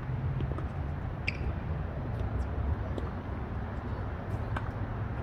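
Tennis balls being struck with racquets: a few sharp taps about a second and a half apart over a steady low outdoor rumble.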